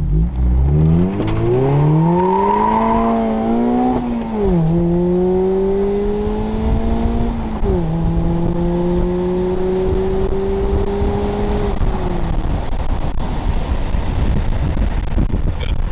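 Mazda ND Miata's four-cylinder engine, breathing through new Hooker headers and an HKS exhaust, accelerating through the gears. The pitch climbs steeply for about four seconds, drops at an upshift, climbs more gently, drops at a second upshift, then holds nearly steady before fading about twelve seconds in, leaving road rumble.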